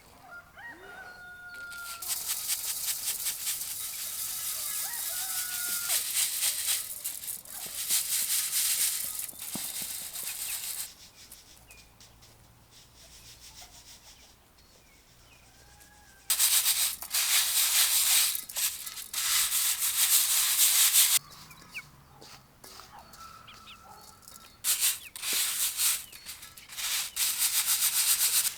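Dry grain being worked by hand, giving three long spells of dry, rasping rustle. Chickens cluck faintly between the spells.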